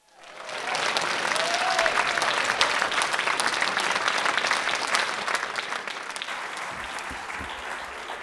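Audience applauding, rising within the first second and tapering off over the last few seconds.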